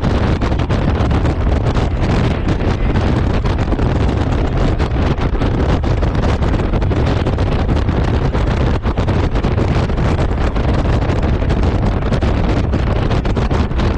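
Steady, loud wind noise buffeting the microphone of a Honda Gold Wing motorcycle under way, with the machine's running noise underneath.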